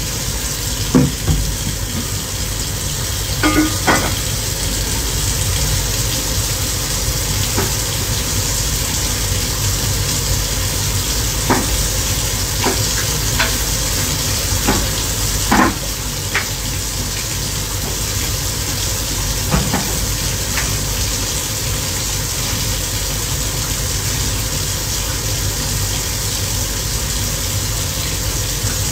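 Food sizzling and frying in a wok, a steady hiss over a low rumble, with scattered sharp clanks of a utensil against the pan, most of them in the first twenty seconds.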